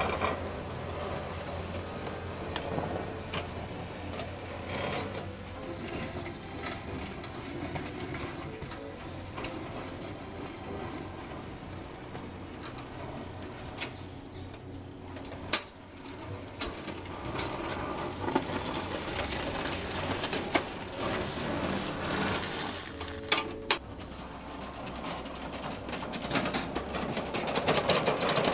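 Homemade electric lawn tractor driving with a front plow blade pushing gravel: the electric drive running, gravel crunching and scraping under the blade and tyres, with frequent clicks and rattles and a couple of sharp knocks.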